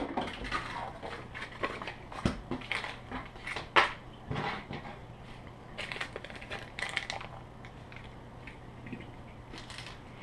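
Clear plastic packaging crinkling and rustling as it is handled and pulled open, with a few sharper clicks scattered through.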